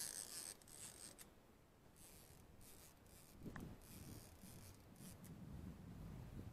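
Near silence, with the faint rasp of a fishing reel being cranked, loudest in the first second. A faint low rumble comes in about halfway through.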